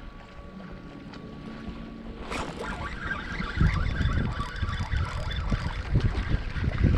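Wind buffeting the microphone in a small fishing boat, with a sudden burst of splashing water about two seconds in and continuing as a hooked fish is played near the boat.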